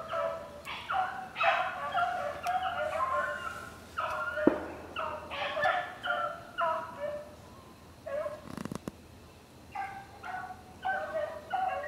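Rabbit hounds baying in full cry on a rabbit's trail, several voices overlapping in repeated calls, easing off for a couple of seconds past the middle before picking up again. A sharp click about four and a half seconds in, and a short knock a little past eight seconds.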